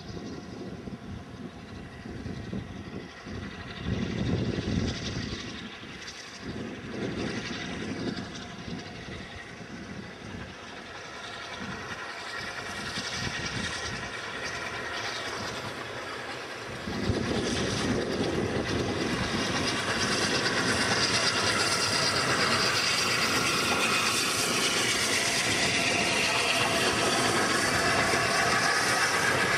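Steam-hauled passenger train approaching and then passing close by. It grows suddenly louder about halfway through and stays loud as the coaches roll past near the end. Wind gusts on the microphone in the first half.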